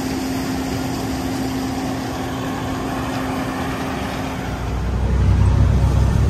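Peterbilt grain truck running on the road, a steady engine and road rumble that grows louder and deeper about four and a half seconds in.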